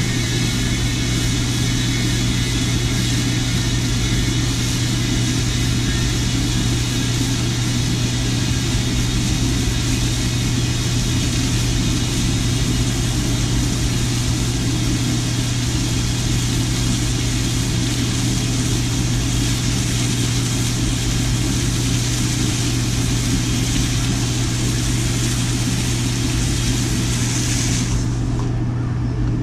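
Water hissing from a garden-hose spray nozzle into a cast iron disco wok over a propane burner, which runs steadily underneath. The spray hiss cuts off near the end while the burner keeps running.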